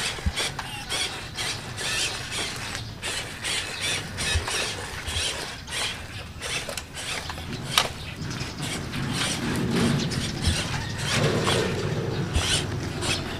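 MN99 1/12 scale RC crawler driving, its small electric motor and gearbox whirring, with an irregular run of clicks and crackles as the tyres roll over gravel and dry leaves. There is one sharp click about eight seconds in, and the whirring grows heavier near the end.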